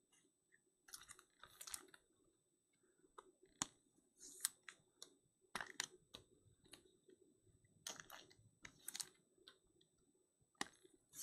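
Faint, irregular clicks and short rustles of trading cards and foil card packs being handled and shuffled on a tabletop.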